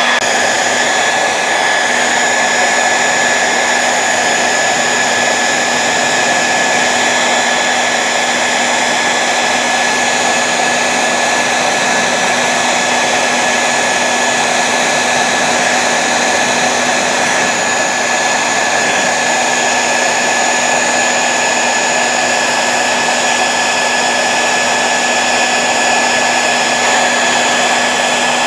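Handheld hair dryer blowing steadily with a constant whine on top. It is warming a lettering sticker on the motorcycle's fuel tank to soften the adhesive for peeling.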